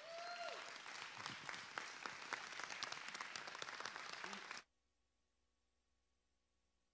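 Congregation clapping, a dense crackle of many hands, with one voice calling out at the start. About two-thirds of the way through the applause cuts off abruptly, leaving near silence with a faint steady hum.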